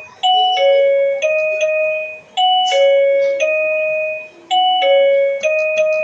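A keyboard playing a short four-note chime-like phrase on the black keys: a high note, a lower note, then a middle note struck twice. The phrase repeats about three times with a bright, bell-like tone.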